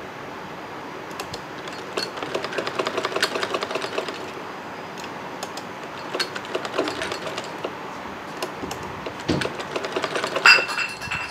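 Mechanical domestic sewing machine stitching fabric, a rapid run of needle-and-feed clicks that stops and starts in three short runs. Near the end comes a brief louder sound with a high tone.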